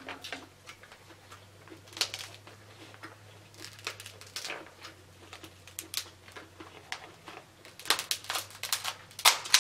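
Cooked king crab leg shell cracking and crunching as it is broken apart by hand: scattered sharp cracks, coming thick and fast near the end.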